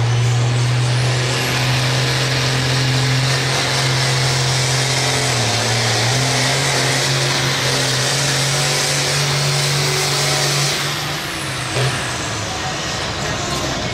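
John Deere hot stock pulling tractor's turbocharged diesel engine held at full power as it drags the weight sled: a loud steady drone with a high hiss over it. About eleven seconds in, the engine drops off as the pull ends, and a brief thump follows.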